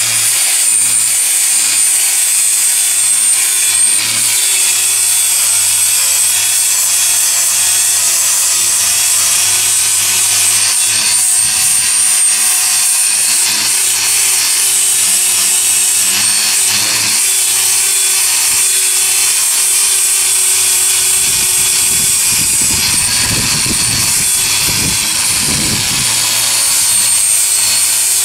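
Cordless angle grinder running steadily with an abrasive disc, grinding bark and wood off a log section. The whine holds throughout, with heavier, rougher grinding from about 21 to 26 seconds in.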